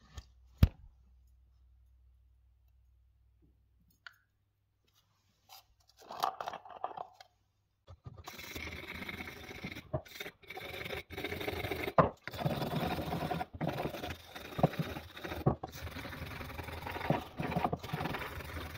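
A sharp knock about half a second in, then near quiet. From about eight seconds in, a hand brush scrubs back and forth over a small two-stroke engine piston, a rough scraping broken by short gaps between strokes.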